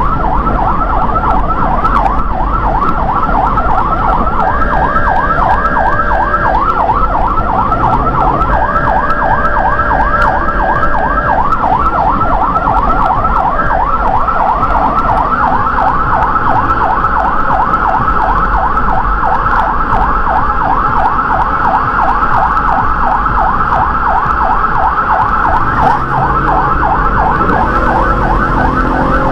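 Electronic emergency siren yelping in rapid rising-and-falling sweeps, several a second, on a vehicle responding to a medical call. Steady horn blasts are laid over it twice in the first third, a short pair and then one longer blast. Low engine and road rumble runs underneath.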